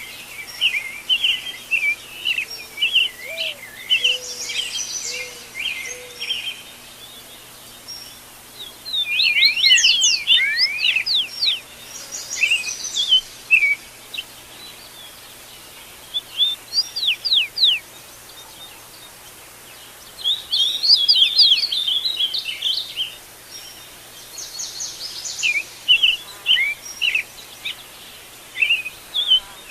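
Several wild birds calling and singing at dawn: quick chirps and sweeping whistles from more than one bird, in busy bouts with short lulls between.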